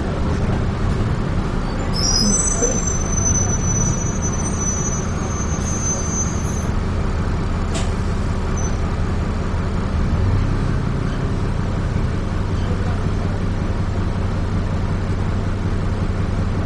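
Dennis Trident 2 double-decker bus heard from inside, its diesel engine and running gear giving a steady low drone. About two seconds in, a high-pitched squeal in several tones lasts for a few seconds, with a sharp click a little later.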